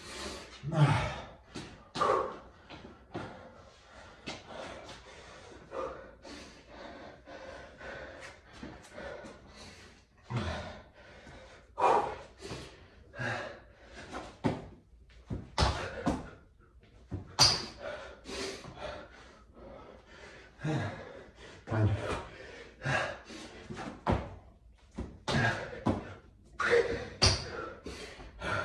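Hard, breathy exhales and gasps from a man working through burpees and squats, with repeated sharp thuds of hands and feet striking a tiled floor about every one to two seconds.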